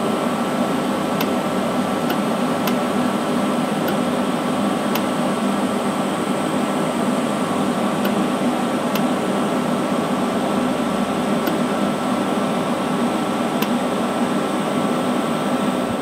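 TIG welding arc on a steel tube joint: a steady hiss with a faint ticking now and then.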